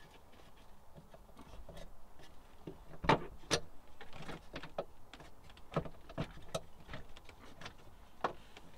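Plastic interior trim being pried off a BMW E36's rear side panel with trim tools: a string of sharp clicks and knocks, the loudest two close together about three seconds in.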